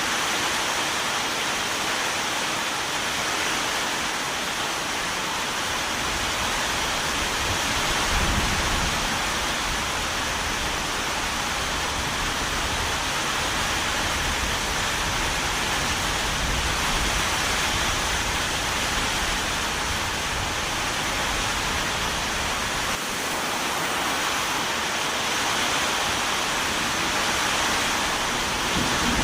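Steady heavy rain hissing evenly. A low rumble swells in about a fifth of the way through and dies away about three-quarters through.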